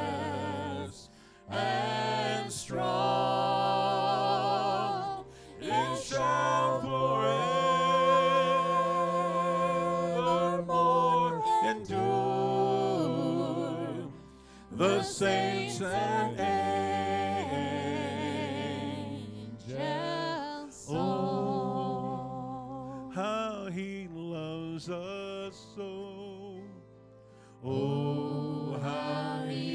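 A church worship team singing a slow hymn in several voices, with long held notes and vibrato over piano and band accompaniment, pausing briefly between phrases.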